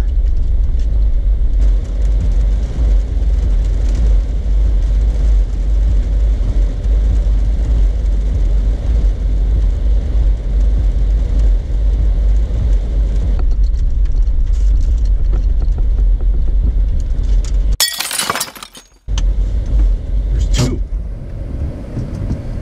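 Jeep Wrangler engine idling with a steady low rumble, heard inside the cabin. Near the end the rumble cuts out for about a second under a harsh burst of noise, followed by a single sharp knock.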